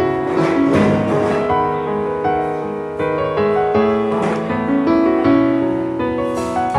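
Background music: a gentle piano melody over held chords.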